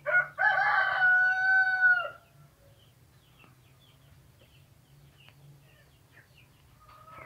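A rooster crows once: one long call of about two seconds, with a short first note, a held note, and a drop in pitch as it ends. After it there is only a faint low hum.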